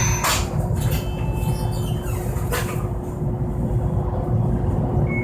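Inside a Toyohashi Railway Mo 780 tram standing at a stop: a steady low rumble with a constant hum from the car's equipment, and a few brief knocks.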